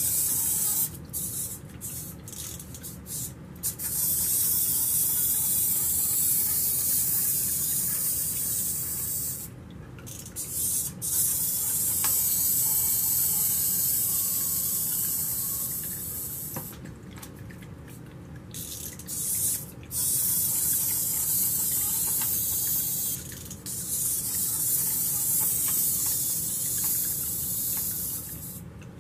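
Tabletop water fountain running: water trickling and splashing into a pebble-filled bowl, a steady hiss that drops away briefly several times.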